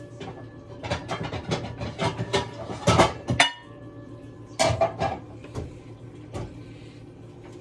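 Kitchen cookware and utensils clattering: a quick run of about a dozen knocks and clinks for a couple of seconds, another short cluster a little past halfway, then a few single knocks.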